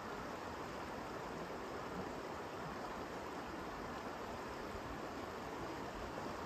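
River water rushing past, a steady, even hiss of flowing water.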